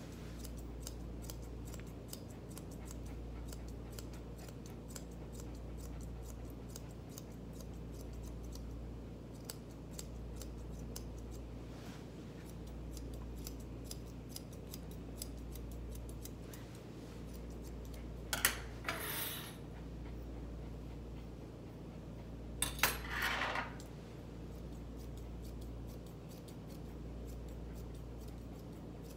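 Grooming shears snipping through a West Highland White Terrier's coat: a scattered run of light, crisp snips, with two louder brief noises about 18 and 23 seconds in. A steady low hum runs underneath.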